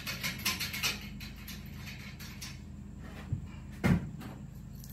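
Light metallic clicks and rattles of bolts being threaded and tightened on a steel truck-bed lift frame, with a single loud knock about four seconds in.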